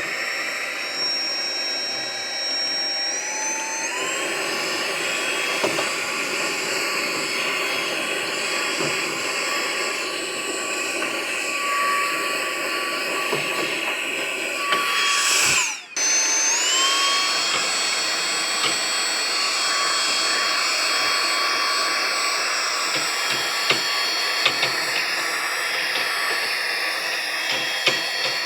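Brushless-motor electric air duster running in blower mode: a high motor whine over rushing air. It spins up at the start and steps up in speed a few seconds in. About halfway through it is switched off and spins straight back up.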